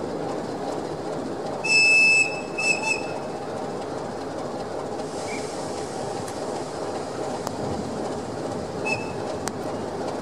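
Train running on rails with a steady rumble; a loud, high wheel squeal sounds about two seconds in, with a couple of short repeats just after.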